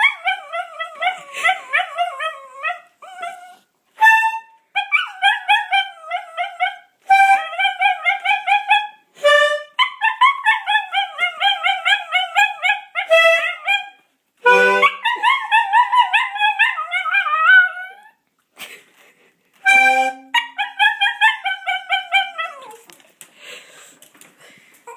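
A dog howling and whining in wavering, yodelling phrases of a second or three each, set off by a new accordion; short steady accordion notes sound between the phrases.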